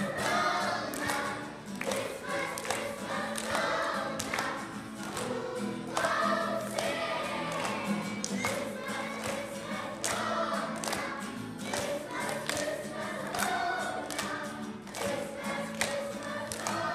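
Choir of children and young people singing, with an acoustic guitar strummed along in a steady rhythm.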